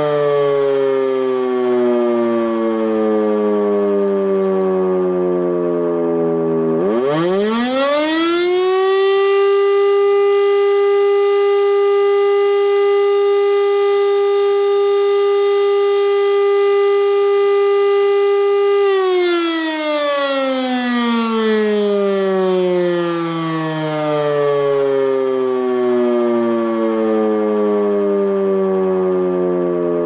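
E57 electric siren winding down, then starting up again about seven seconds in with a fast rising wail. It holds a steady tone for about twelve seconds, then slowly falls away in pitch. Its rotor turns the wrong way, so the siren never reaches full volume and its tone stays below 400 Hz.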